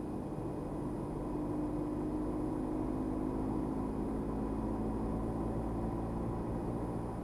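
Car engine and tyre noise heard from inside the cabin while driving steadily along a street. The low engine hum drifts slightly lower in pitch through the middle.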